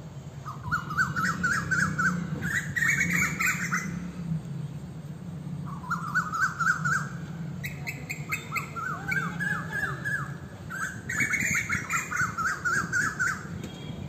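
A bird calling in about five short bursts of rapid, repeated chirping notes, each burst a second or two long, over a low steady rumble.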